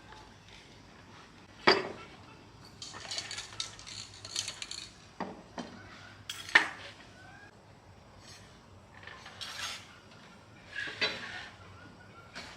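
Metal tools and parts clinking and clattering as they are handled, with two sharp knocks, one about two seconds in and a louder one about six and a half seconds in.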